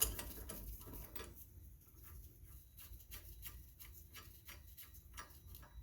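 Faint, regular light ticking, about five ticks a second, from hand tools working the staked nut on the rear axle shaft.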